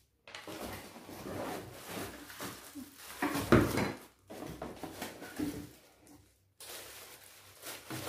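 Packaging being handled and rustled while a hair dryer is unboxed, uneven rustling and scraping with one louder rustle or knock about three and a half seconds in, a short pause past the middle, then more rustling.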